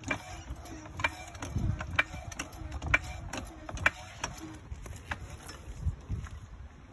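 Hydraulic floor jack being pumped by its handle to raise the car, a sharp click with each stroke, about one a second.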